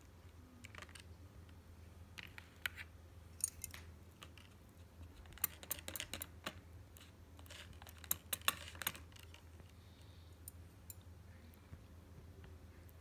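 Metal chopsticks clicking and tapping against thin plastic takeout containers while wasabi is stirred into soy sauce: scattered sharp clicks, with quick runs of them twice in the middle, over a low steady hum.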